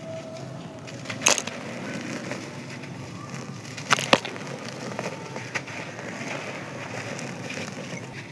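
Dry sand-cement chunks being crushed and crumbling with a steady gritty crunch, with sharp snaps: one about a second in and two close together around four seconds in.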